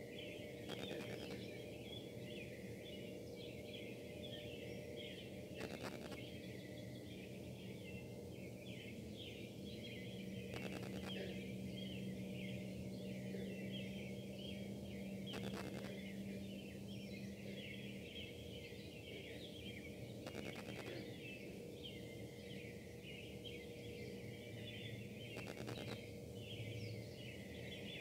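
Steady industrial buzzing and hum from the Casting Solutions foundry. It holds a low drone and several higher steady tones, and a stronger low tone comes in for several seconds in the middle. Brief crackles of wifi interference cut in about every five seconds.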